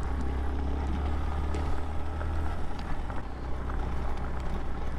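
Suzuki VanVan 125's single-cylinder engine running steadily at low revs while the motorcycle rides slowly along a gravel track, heard from on the bike. A few faint ticks come through.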